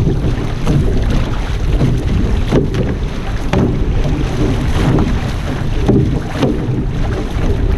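Water rushing past the hull and outrigger float of a paddled outrigger canoe, with the splashes of paddle strokes coming about once a second. Wind buffets the microphone throughout.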